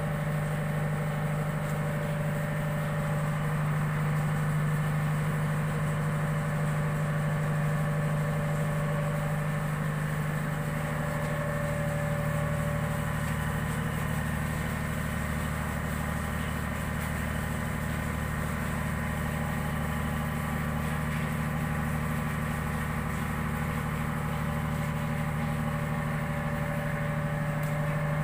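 Ship's diesel machinery running with a steady low drone and a faint higher hum; the lowest part of the drone grows stronger about eleven seconds in.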